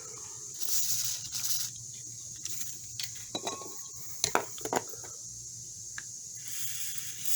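WD-40 aerosol can spraying in two short hissing bursts, about a second in and again near the end, with a few light metallic clicks from the multi-tool being handled in between.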